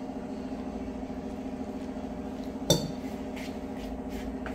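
A stainless steel tumbler is set down on a stone countertop with a single sharp metallic clink about two-thirds of the way in. Soft rubbing follows as a hand starts mixing flour in a bowl, over a steady low hum.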